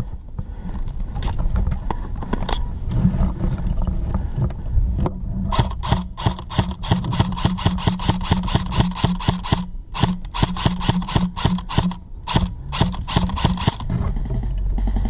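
Airsoft gun firing a rapid run of sharp shots, several a second, from about five seconds in, with a short break near the middle. A steady low hum lies underneath.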